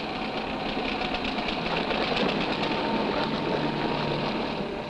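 Small engine of a walking farm tractor (power tiller) running with a fast, even clatter, a little louder in the middle.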